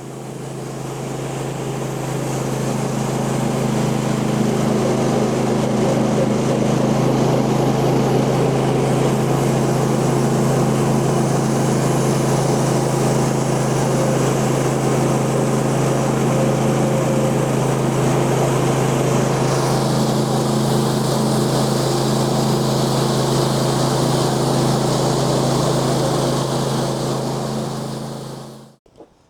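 Portable bandsaw sawmill's small gas engine running steadily at a constant speed while the band blade cuts a white oak log. The sound fades in at the start and out near the end, and the higher hiss shifts about two-thirds of the way through.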